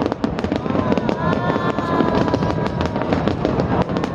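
Aerial fireworks display: a dense, continuous run of bangs and crackles, with a held high tone running through the middle.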